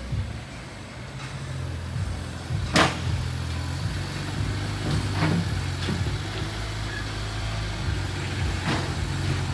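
BMW Z4 35iS's twin-turbo inline-six running at low revs while the car is driven slowly onto an alignment rack. A sharp knock comes about three seconds in, with a few lighter clicks later.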